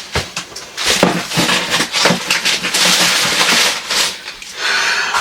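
Kitchen cleaning noises: a few knocks of items being handled, then a couple of seconds of hissing noise.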